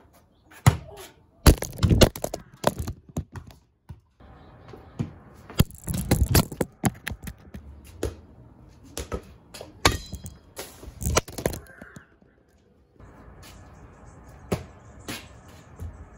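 Balls being kicked and bouncing on a brick patio: a string of sharp, irregular thuds and slaps.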